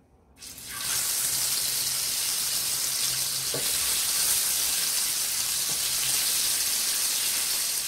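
Spice-marinated, already-cooked chicken pieces sizzling in hot oil in a nonstick frying pan as they are laid in by hand. The sizzle starts about half a second in, swells within the first second, then holds steady.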